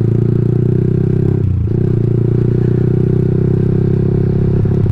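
Yamaha R15 sport bike's single-cylinder engine running steadily while riding, with a brief dip in engine note about a second and a half in.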